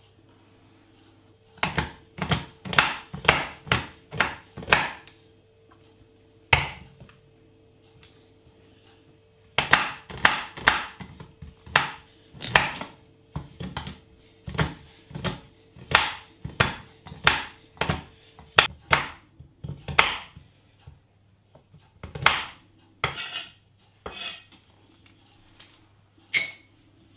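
Chef's knife chopping a bar of dark chocolate on an end-grain wooden chopping board: sharp knocks of the blade on the wood, about two a second, in two long runs with a pause of a few seconds between them.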